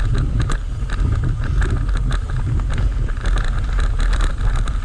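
Mountain bike rolling fast down a dirt trail, heard from a camera on the bike: wind on the microphone as a steady low rumble, with frequent clicks and rattles from the bike and tyres over the rough ground.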